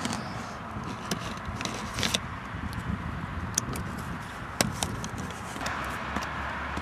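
A packet of Digestive biscuits being handled and pressed, its plastic wrapper crinkling in scattered crackles and clicks over a low steady hum.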